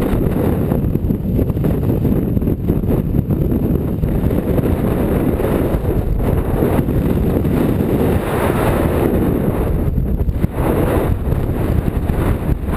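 Strong wind in a blizzard buffeting the microphone: a loud, steady rumble with brief dips near the end.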